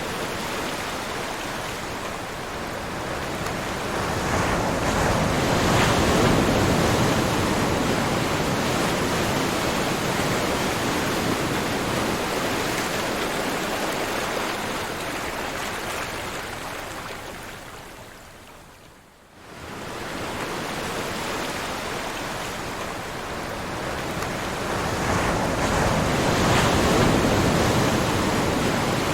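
Ocean surf: a steady rush of waves that swells about five seconds in and again near the end, dipping briefly almost to quiet about two-thirds of the way through.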